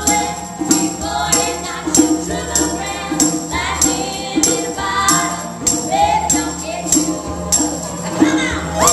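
Several voices singing a song in close harmony, with a tambourine struck on the beat about one and a half times a second.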